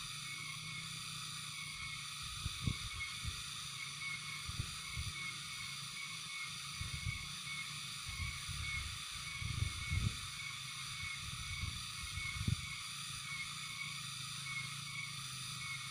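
Steady hiss with a faint pulsing high tone in it and a low rumble underneath, broken by scattered short low thumps, the strongest near the middle and about three quarters of the way through.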